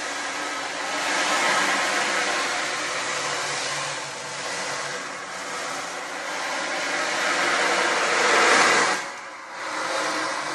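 Beads sliding inside hand-tilted percussion, first a clear tube rattle and then an ocean drum, making a surf-like rush that swells and fades. It is loudest just before it breaks off about nine seconds in, then swells again.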